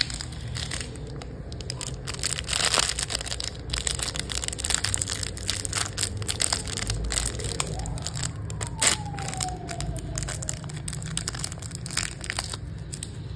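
Crinkling of a plastic candy packet being squeezed and worked open to get gummy sharks out: a dense, irregular run of sharp crackles. A single tone slides down in pitch partway through.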